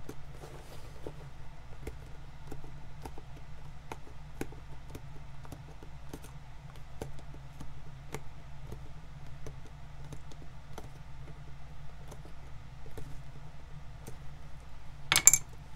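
Old sole-stitching thread being picked out of a shoe's welt by hand: small, irregular clicks and snaps over a steady low hum. A louder brief clatter comes near the end.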